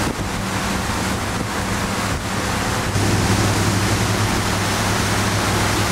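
Wind rushing over the microphone and water rushing past a moving boat, over the steady low drone of the boat's engine, which grows louder about halfway through.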